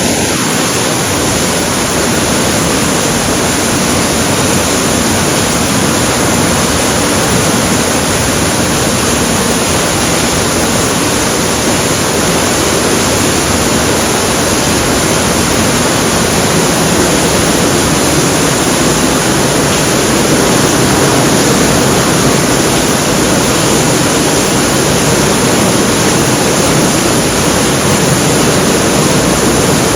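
Heavy rain pouring down steadily, a dense, even hiss of a downpour.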